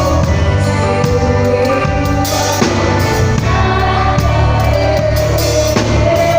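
Gospel band playing a song with singing over a drum kit and held chords.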